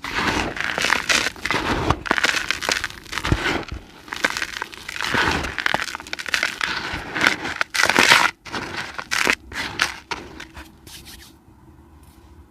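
Dry cement crumbling, a dense run of gritty crunches and cracks that thins out and stops near the end.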